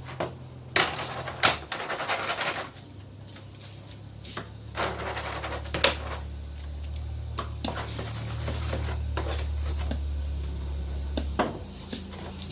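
Metal parts of a pressure-washer pump being handled and worked apart: scattered knocks, clicks and short scrapes, over a low rumble that grows louder in the second half.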